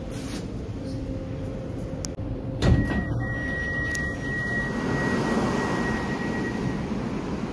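Electric commuter train's sliding passenger doors opening with a sharp thud about two and a half seconds in, followed by a steady high beep lasting about four seconds. Before it the car's steady hum, after it a wider open-air hiss from the platform.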